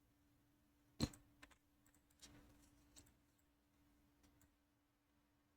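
Mostly quiet, with a few scattered clicks of a computer keyboard and mouse. The loudest is a sharp click about a second in. A faint steady hum runs underneath.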